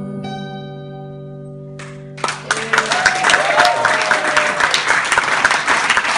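The final chord of a steel-string acoustic guitar rings and fades, then about two seconds in an audience breaks into loud applause that carries on.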